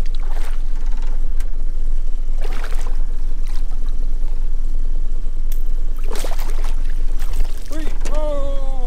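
Gold-spotted rock cod splashing at the surface beside a small aluminium boat as it is drawn in and lifted aboard on the line, over a steady low rumble. About a second before the end, a man's voice rises into a drawn-out exclamation that falls in pitch.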